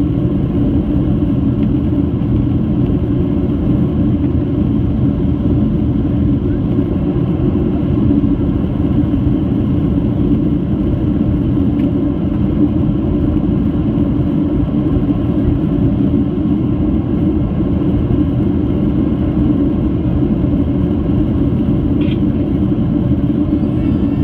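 Cabin noise of a Boeing 737-800: its CFM56-7B jet engines and the airflow running at a steady, loud rumble with a constant low hum, heard from inside the passenger cabin.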